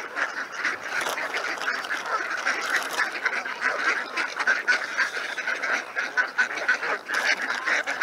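A flock of ducks and geese calling over one another, a steady, unbroken chatter of quacks and honks.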